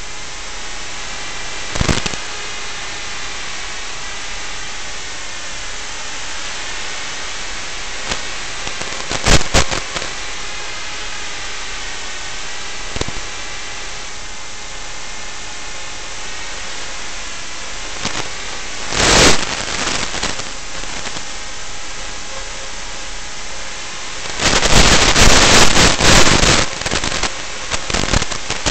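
Steady hiss of static from the audio channel of an Eachine EV800D analog FPV video receiver. It is broken by several loud crackling bursts, the longest lasting a few seconds near the end.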